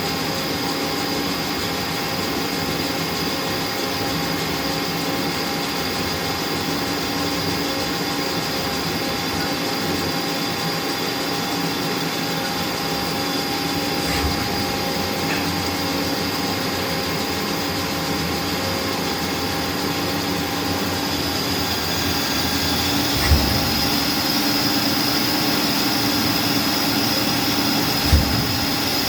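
1996 Haas CNC lathe running a part program in the air, stood off from the part with no coolant: a steady machine whine with several tones. It grows a little louder and higher about three-quarters of the way through, with a couple of sharp clunks near the end.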